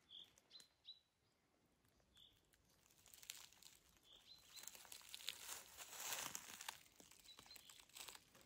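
Faint short high bird chirps scattered through, with soft rustling and crunching starting about three seconds in and going on to the end.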